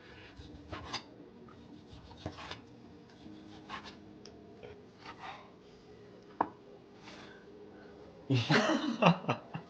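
Quiet room with scattered faint clicks and rubbing, handling noises, one sharper tick past the middle, then a short burst of voice near the end.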